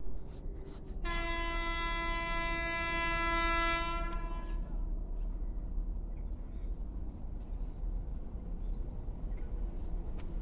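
Distant WAP-7 electric locomotive horn sounding one long, steady blast of about three and a half seconds, starting about a second in. After it comes a steady low rumble from the approaching train.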